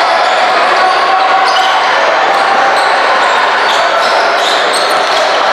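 Basketball game sound in a gym: the ball bouncing on the court, with voices from players and spectators throughout.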